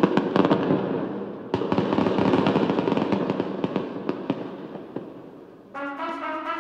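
Fireworks crackling: a dense run of sharp pops that starts suddenly, a second burst about a second and a half in, then dies away. Music with sustained brass-like notes starts near the end.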